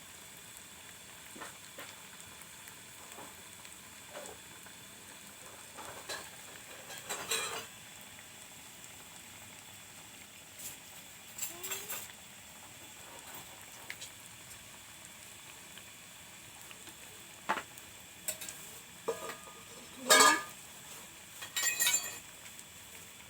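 Kitchen utensils knocking, scraping and clinking against cookware now and then, with quiet stretches in between; the loudest clatter comes near the end.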